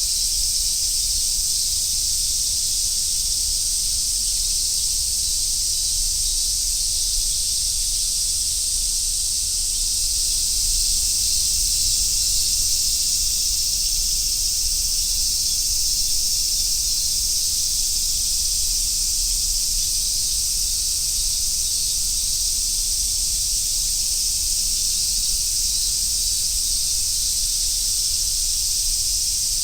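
Chorus of cicadas, large brown cicadas and others, buzzing steadily as one dense, high-pitched hiss with no breaks.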